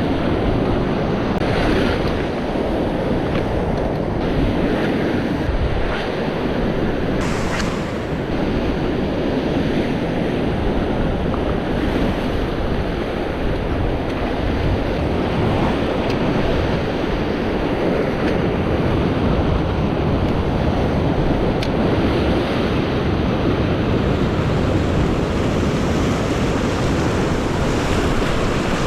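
Sea waves washing and surging over a rocky shore in a steady rush of surf, with wind buffeting the microphone.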